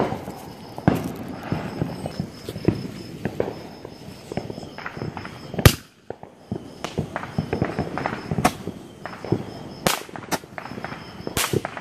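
Fireworks going off: an irregular string of sharp pops and bangs, the loudest bang about halfway through.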